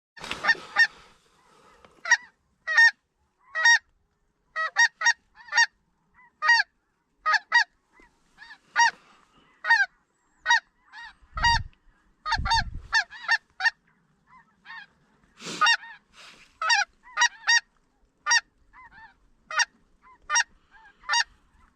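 Geese honking over and over, many short separate calls in loose bursts, with two low thumps about halfway through.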